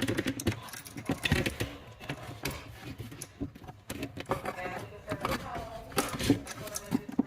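Irregular clicks, taps and rattles of small hard objects being handled, with a few short squeaky pitched sounds about five to six seconds in.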